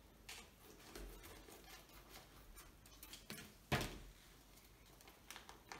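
Plastic packaging around a vacuum-packed ball of yarn rustling and crinkling as it is handled and torn open, in many short irregular rustles, with one sharper knock a little past halfway.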